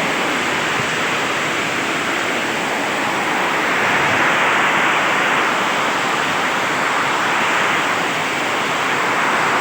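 Heavy rain with hail falling, a steady loud rushing hiss.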